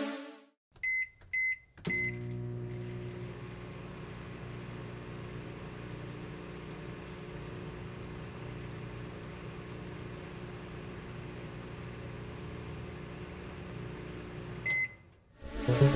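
Microwave oven: three short keypad beeps, then its steady hum as it runs for about thirteen seconds, ending with a single beep.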